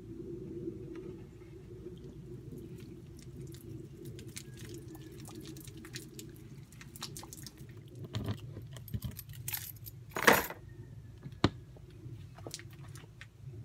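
Water poured from a plastic jug over a truck camper's storage compartment door, splashing and dripping down the side wall in scattered small ticks and patters: a water test of the door's new rubber seal. A sharp, louder clack comes about ten seconds in, with a fainter click a second later.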